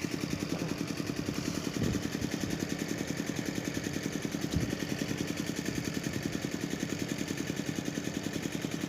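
A small engine idling steadily with an even, rapid pulsing, with two short low thumps about two and four and a half seconds in.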